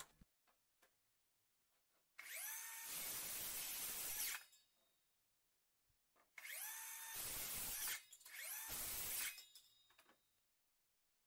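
Greenworks cordless circular saw, its blade freshly sharpened against a whetstone, running three times and cutting a board. Each run opens with a whine that rises as the motor comes up to speed and stops abruptly. The first run is about two seconds long and the last is short.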